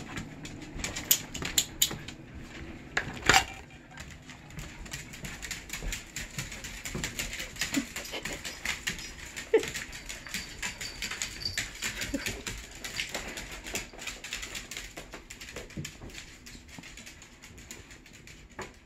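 Beagles' claws clicking and tapping rapidly on a hard floor as several dogs walk and shuffle about, with a few louder knocks among the clicks.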